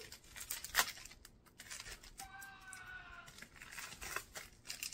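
A small plastic packet being torn open and crinkled by hand, with irregular crackles and one sharper tear under a second in. A short falling tone about halfway through.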